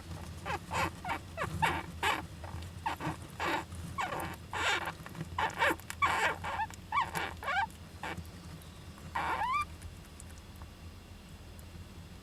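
Young Japanese giant flying squirrel calling: a quick run of short calls, several sliding upward in pitch, then a pause and one longer rising call about nine seconds in.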